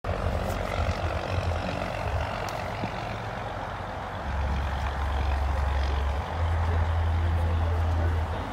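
Wind buffeting the microphone, a low uneven rumble that gets heavier about halfway through, over a steady background hiss.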